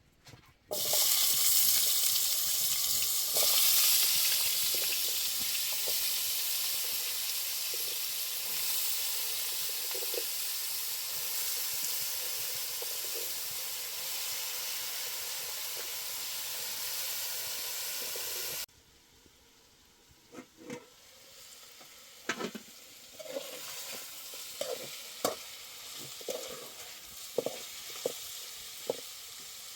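Food frying in a pan: a loud, steady sizzle that starts suddenly and cuts off abruptly about two-thirds of the way through. A quieter sizzle follows, with scattered clicks and knocks from stirring in the pan.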